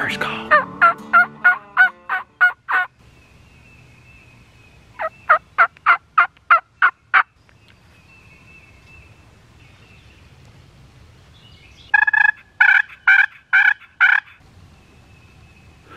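A turkey call worked by hand, sounding three runs of hen yelps, each a string of seven or eight sharp notes over about two seconds: the first right away, the second about five seconds in, the third about twelve seconds in, with quiet pauses between. It is a hunter's calling to announce a hen to any gobbler in earshot.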